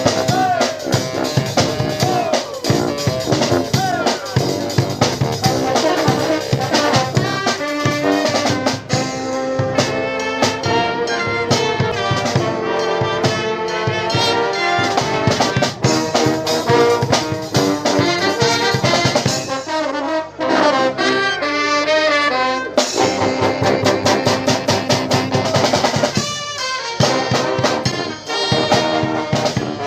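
Live brass band playing, with trumpets and trombones over a steady drum kit beat. About two-thirds of the way through, the drums ease off for a few seconds, then come back in with a hit.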